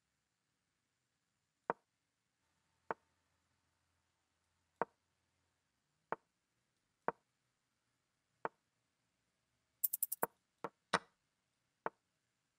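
Online chess move sounds: a short, sharp wooden-piece knock each time a move is played, coming every second or so, then a quick cluster of sharper, brighter clicks about ten seconds in.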